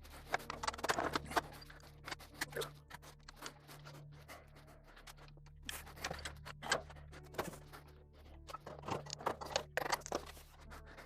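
Steady background music over irregular metal clinks, clicks and short scrapes from valve removal on a small-block Chevy 350 cylinder head, as springs, caps and valves are handled with hand tools.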